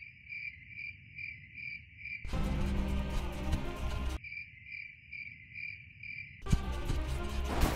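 Crickets chirping in a steady high pulse, about two and a half chirps a second. About two seconds in and again near the end the chirping gives way to loud, noisy passages.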